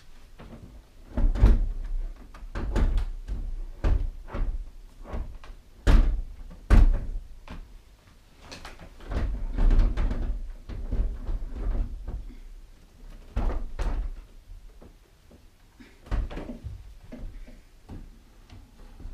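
Irregular knocks, bumps and clatter of things being handled and moved about at a wooden shelf while a DVD player is hooked up, with a few louder thumps, two of them close together about six seconds in.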